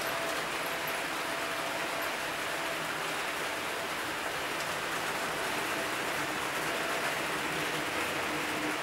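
Model train rolling past on layout track: a steady hiss of small wheels on rails, with a faint motor hum.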